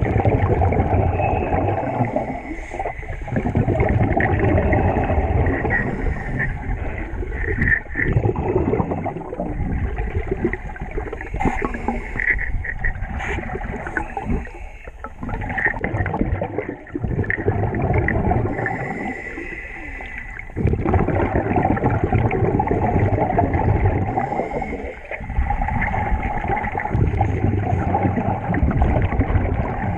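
Scuba regulator exhaust bubbles heard underwater: repeated stretches of bubbling rush a few seconds long, with short dips between breaths.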